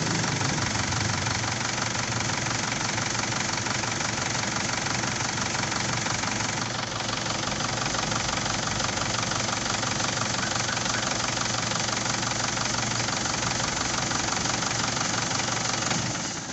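Isuzu 4JH1-TC four-cylinder turbo-diesel idling steadily, then cutting out suddenly near the end: the engine stalling at idle.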